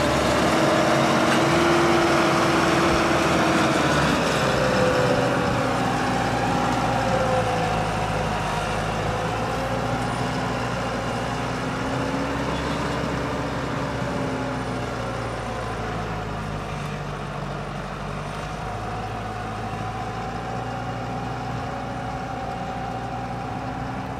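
Farm tractor's diesel engine running steadily under load while pulling a reversible moldboard plough through the soil, its pitch wavering a little. It fades gradually as the tractor moves away.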